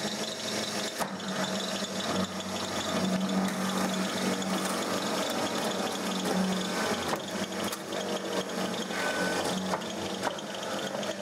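Drill press running with its bit cutting down through a stack of Nokia mobile phones: a steady motor hum under scratchy grinding and many small clicks as the plastic casings and internals are bored through.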